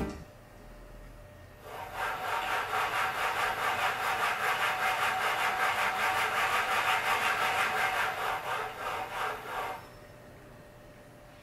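Electric thrusting machine running, its motor driving the rod back and forth in a fast, regular stroking rhythm of mechanical rubbing noise. It starts about two seconds in and stops about two seconds before the end.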